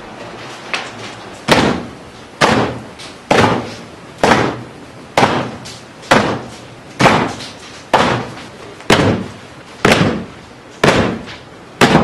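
Mallets pounding jagube vine (ayahuasca vine) in the bateção, macerating it for the Santo Daime brew. The strikes are heavy and regular, about one a second, and start about a second and a half in.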